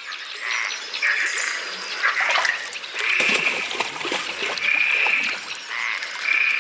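A chorus of frogs croaking, with repeated calls about half a second to a second long.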